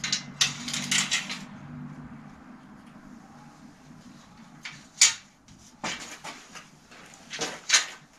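Bicycle chain of a Gazelle city bike clinking and rattling as it is worked off the rear sprocket of the Nexus hub, then a few single metallic clicks and knocks later on.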